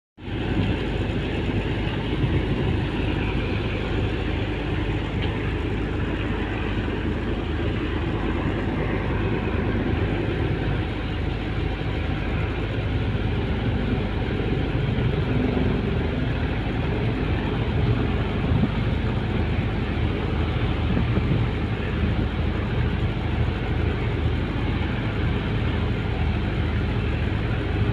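Boat engine running steadily with a low rumble.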